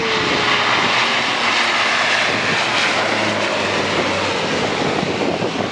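Bombardier Q400 turboprop at takeoff power on its takeoff roll, passing close by: its two Pratt & Whitney PW150A engines and propellers make a loud, steady roar with a low propeller hum beneath it.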